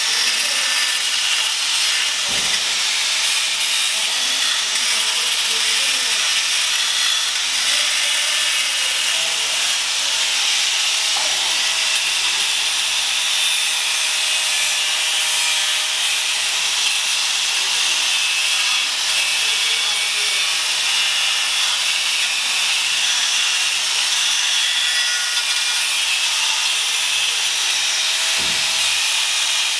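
Handheld angle grinder cutting into the steel of a car's front-end structure, running with a steady, high, hissing grind that does not let up.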